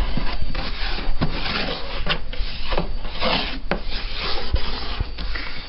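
Cat scratching and rubbing against a cardboard box: a run of rasping scrapes with sharp clicks between them.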